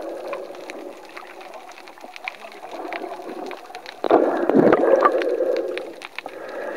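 Muffled underwater noise picked up by a submerged camera, with scattered faint crackles. About four seconds in, a louder rush of churning water lasts nearly two seconds as a swimmer moves right against the camera.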